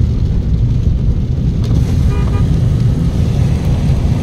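Road and engine noise inside a moving car's cabin: a steady low rumble, with a short flat tone a little past halfway.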